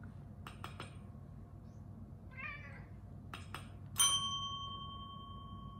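A domestic cat gives one short meow about two and a half seconds in. Near four seconds a desk call bell is struck once and rings out with a clear tone that fades slowly, the loudest sound, rung as the cue for a treat. A few light clicks come before each.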